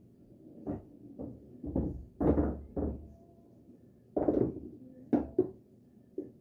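A series of irregular dull knocks and thumps, several close together about two seconds in and again about four to five and a half seconds in.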